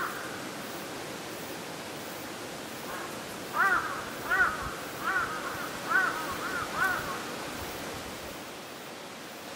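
Crow calling: a run of about six caws, a little under a second apart, starting about three and a half seconds in, over a steady background hiss.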